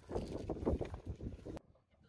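Wind buffeting the microphone in an uneven low rumble, which cuts off abruptly near the end, leaving near silence.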